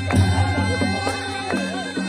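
Nepali panche baja band playing: sanai (shehnai) reed pipes wail a wavering, ornamented melody over beating drums.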